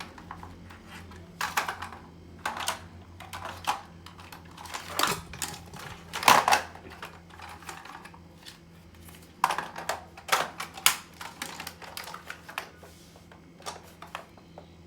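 Irregular clicks and knocks of hard plastic being handled as a Roomba battery is taken out and fitted into another Roomba, with the loudest knock about six seconds in. A faint steady low hum lies underneath.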